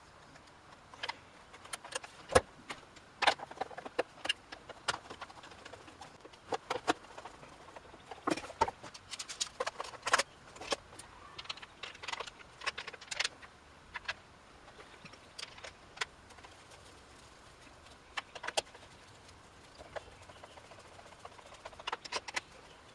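Irregular metallic clicks and clinks of a wrench and small parts being handled as the chainsaw's chain bar is fitted and its new bar nuts are put on and tightened.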